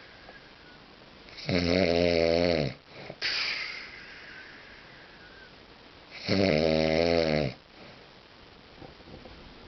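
A man snoring loudly in his sleep: two long snores about five seconds apart, the first followed by a hissing breath out.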